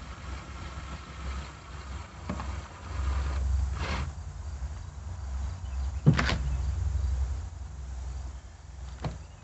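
A few short knocks and clicks of hand work on a plastic kayak while screws for the switches are set, the loudest about six seconds in, over a steady low rumble.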